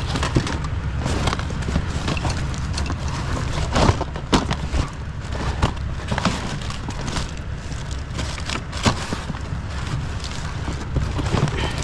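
Plastic DVD cases and discs clattering and clacking as a gloved hand rummages through a box of them: irregular sharp knocks over a steady low rumble.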